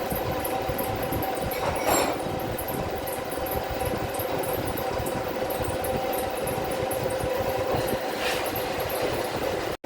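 A machine running steadily with a constant hum. There is a brief louder hiss about two seconds in and another near the end.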